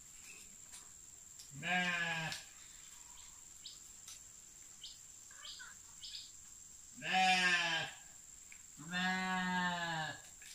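Sheep bleating three times, long wavering calls, as they crowd in to be hand-fed rambutan leaves. Faint short rustles and clicks come in between the calls.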